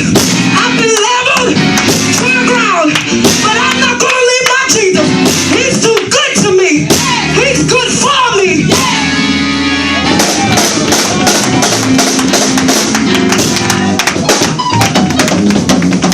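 Church music: singing voices over sustained instrument chords, with a steady beat of sharp percussive taps.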